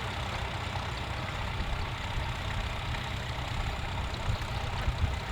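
Vintage farm tractor engine running steadily at low revs, a low, even rumble.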